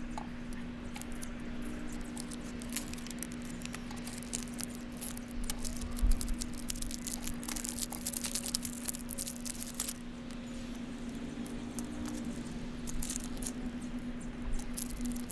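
Close crinkling, crackling and scratching as a radar cable is stripped by hand: foil shielding and wire braid being peeled back and picked apart, busiest in the middle of the stretch. A steady low hum runs underneath.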